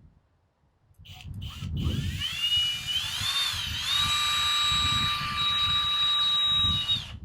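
Power drill driving a tiny screw to start it: the motor starts about a second in, its whine rising in pitch and then holding steady, and stops suddenly near the end.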